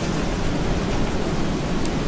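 Steady rain: a dense, even wash of noise, heavy in the low end, with a few separate drop ticks.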